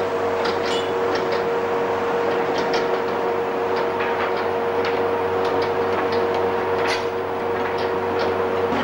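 Steady foundry din while molten iron is poured into sand pipe moulds: a continuous rushing noise with a held humming tone, and scattered light clicks and crackles.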